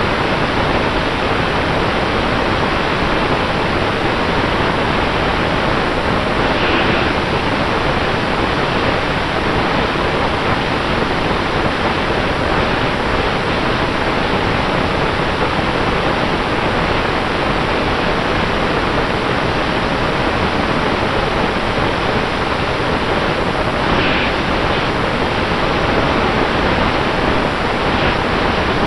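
5-inch FPV quadcopter in flight, heard through its onboard camera's microphone: a steady loud rush of propeller wash and air over the mic, with a faint steady motor tone underneath.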